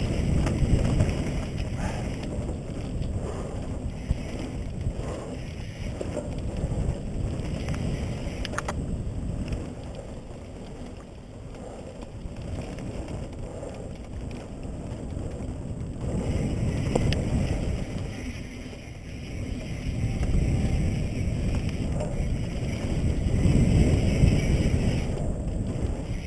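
Wind rumbling on a helmet-mounted camera's microphone, together with the tyre and trail noise of a mountain bike descending a dirt singletrack, swelling and easing with speed. A few sharp ticks from the bike come through around nine and seventeen seconds in.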